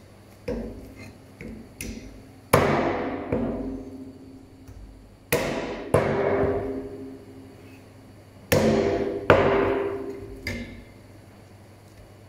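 Heavy knocks on metal while wild boar meat is being butchered. Each loud knock rings on and dies away over about a second. There are about ten knocks, and the loudest come in three pairs.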